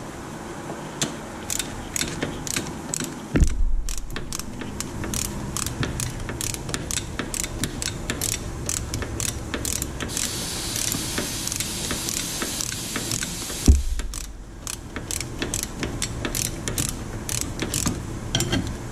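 Ratchet wrench clicking in quick, uneven runs as it tightens the mounting bolts of a rear wheel hub bearing. A dull thump comes about three seconds in and a louder one about fourteen seconds in.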